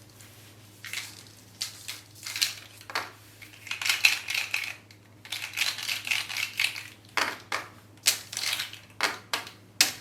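Irregular scratchy strokes and rustles in quick clusters, like something being handled or rubbed on a surface, over a steady low electrical hum.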